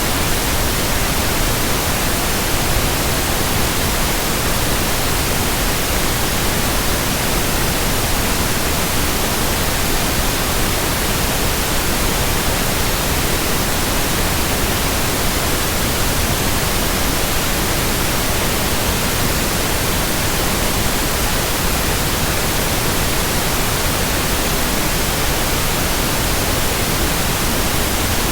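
Steady white noise: an even, unbroken hiss spread across low and high pitches alike, with no swish, rhythm or change.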